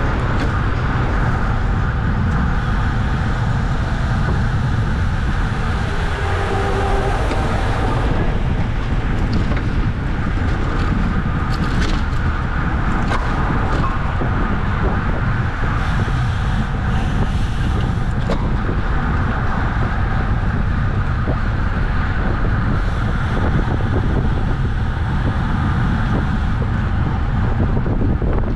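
Steady wind rumble on a bicycle-mounted camera's microphone while riding, mixed with road and tyre noise, with a few faint ticks.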